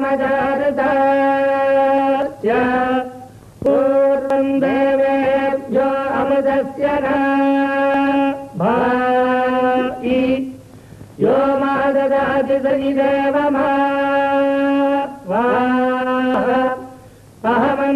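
Indian devotional music: a single melody line of long held notes that scoop up in pitch at the start of each phrase, in phrases of a few seconds with short breaks between them.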